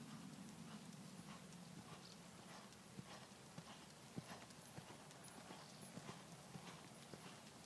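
Horse trotting under saddle on a sand arena surface: faint hoofbeats in a steady, regular rhythm.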